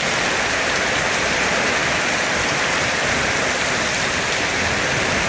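Very heavy rain falling steadily, a dense, even hiss with no letup.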